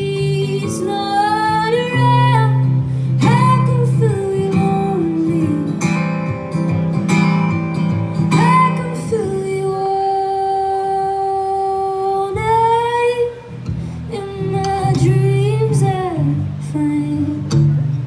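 A woman singing over her own strummed acoustic guitar in a live solo performance, with one long held note about nine seconds in.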